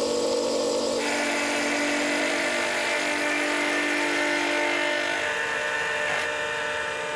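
Milling machine end mill cutting metal under power: a steady machining whine with several held tones as the cutter throws chips. The tone of the cut changes about a second in.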